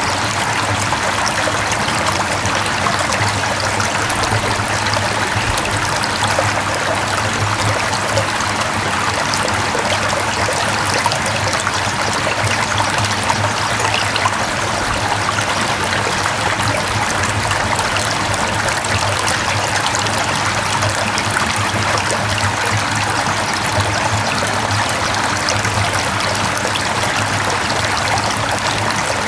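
Mountain valley stream flowing over rocks: a steady rush of running water that does not let up, with a faint low band of hum beneath it.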